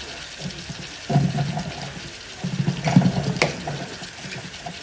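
Kitchen water running or pouring, with two sharp clicks about three seconds in.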